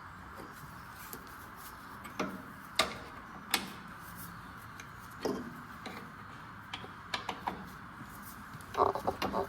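Scattered sharp clicks and light knocks from hands and tools working on a lorry's tank strap, with a quick flurry of clicks near the end, over a steady background hum.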